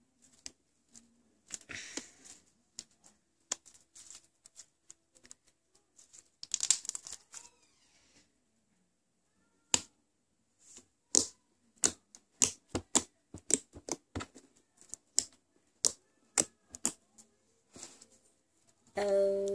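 Foam-bead slime squeezed and stretched by hand, the beads giving off irregular sharp crackling clicks and pops, thickest in quick runs near the middle and later part. Near the end a voice hums a steady note.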